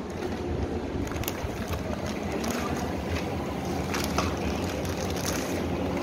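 Plastic wrapping crinkling and rustling in irregular crackles as hands pull it off a taped parcel, over a steady low rumble.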